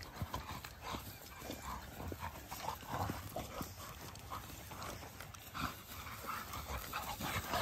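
Labrador puppy and another dog play-wrestling on dry grass: scuffling paws and short dog noises in a quick, irregular string.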